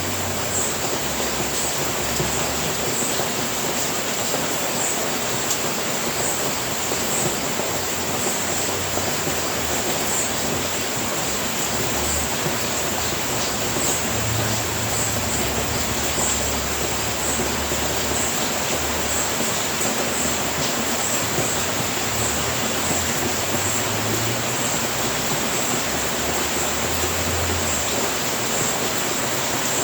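Steady rain: an even, unbroken hiss with faint ticks of single drops on top, and a low rumble that comes and goes underneath.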